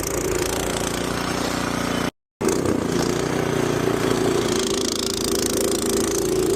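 Snowblower engine running steadily at a constant pitch. The sound cuts out completely for a moment about two seconds in, then resumes unchanged.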